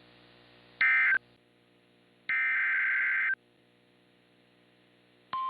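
Emergency Alert System signalling: a short SAME digital data burst about a second in, then a second burst lasting about a second, both a harsh electronic warble. Near the end the steady single-pitch 1050 Hz NOAA Weather Radio attention tone starts. A faint low hum runs underneath between the bursts.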